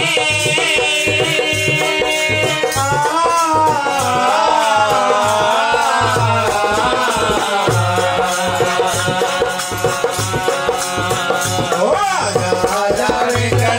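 A man sings a devotional bhajan over a harmonium, with percussion keeping a steady beat. The harmonium plays alone for the first few seconds before the voice comes in with long, gliding sung phrases.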